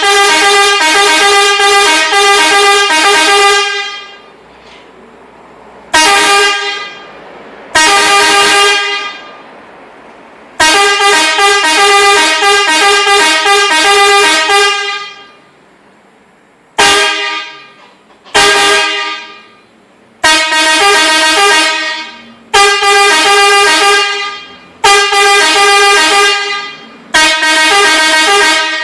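Car horns driven by an electronic melody horn module, sounding a rhythmic tune of short notes that step in pitch. The tune comes in about ten loud blasts, some brief and some several seconds long, with pauses of up to a couple of seconds between them.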